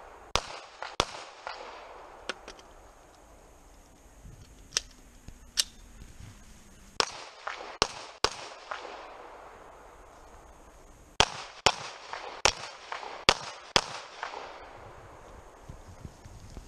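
Handgun shots, about a dozen sharp cracks, mostly fired in quick pairs with pauses of a few seconds between strings. Each shot has a short echoing tail.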